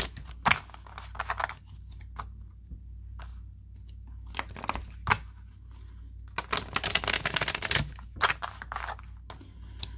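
A tarot deck handled and shuffled by hand: scattered papery card taps and slides, with a dense run of shuffling about six and a half to eight seconds in. A low steady hum lies underneath.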